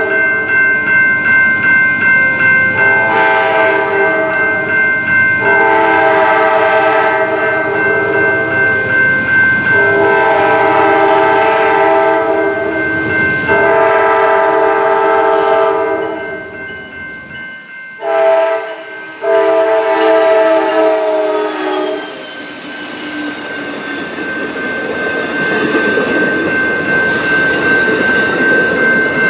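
Amtrak P42DC diesel locomotive sounding its horn in a series of blasts as it approaches, over a bell ringing steadily. About twenty seconds in the horn stops, and the passing Superliner passenger cars rumble and clatter over the rails.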